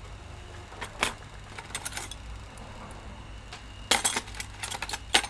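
Light clinks and rattles as a hot air rework gun and its cable are handled and moved, louder and busier in the second half, over a steady low hum.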